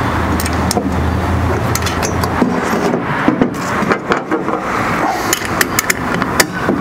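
Small metal clinks and taps of bolts, nuts and a spanner against a steel bracket as it is bolted together, the clicks coming thicker in the second half as a nut is tightened with the spanner. A low steady hum stops about two and a half seconds in.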